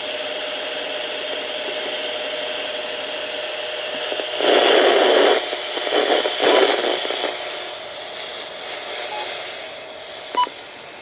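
Radio receiver playing a dead-air broadcast: steady static hiss with a faint steady hum. A few loud rushes of static come about four to seven seconds in, and a short beep sounds near the end.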